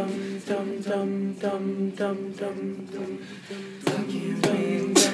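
Male a cappella group singing sustained close-harmony chords, with a sharp percussive beat about twice a second that grows stronger near the end.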